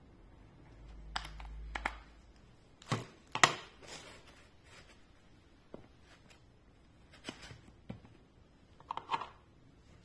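Short clicks and knocks of handling as cylindrical battery cells are pulled out of a plastic charger and pressed into a foam case insert, with the loudest pair of knocks about three seconds in.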